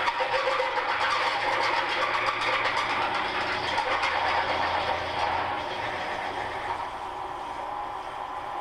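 Milling machine's angle head driving a large 15/16-inch drill into the steel end of a truck tie rod: a steady grinding cutting noise over the running motor, easing off and getting quieter about six seconds in as the cut nears its finish.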